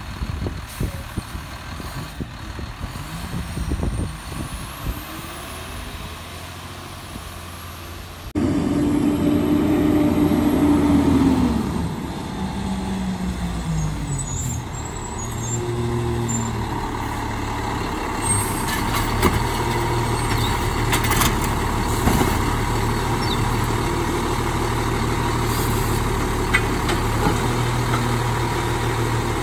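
Autocar Autoreach automated side-loader garbage truck running, its diesel engine and hydraulic arm working as carts are grabbed and tipped into the hopper. About eight seconds in the sound steps louder with a falling whine, then settles into a steady engine hum with occasional clanks.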